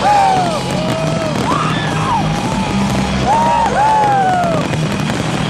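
Crowd members whooping and cheering, many overlapping rising-and-falling 'woo' calls, over loud music playing through loudspeakers.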